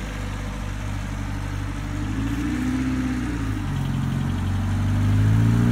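Honda Civic's four-cylinder engine running at low revs as the car is manoeuvred slowly, its pitch rising and falling with light throttle a couple of times.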